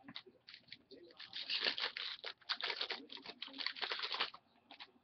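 A hockey trading-card pack wrapper being torn open and crinkled by hand, a dense run of crackling and tearing for about three seconds that stops suddenly.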